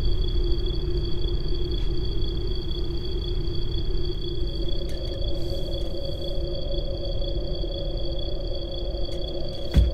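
Low rumbling drone with steady high-pitched tones held throughout; a second, middle tone comes in about halfway, and a single low thump lands near the end.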